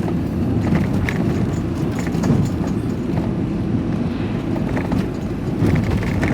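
A van driving on the road, heard from inside the cab: a steady low rumble of engine and road noise.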